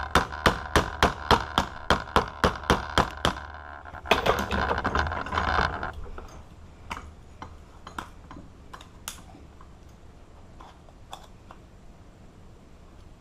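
Hand work on a steel padlock: a run of evenly spaced sharp metallic strikes, about three a second, each with a short ring. About four seconds in comes roughly two seconds of continuous rasping, followed by scattered light clicks and taps.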